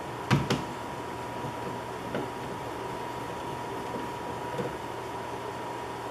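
Two sharp clicks close together, then a few fainter ticks, from hands working screws and plastic parts at a wall switch. A steady faint high hum runs underneath.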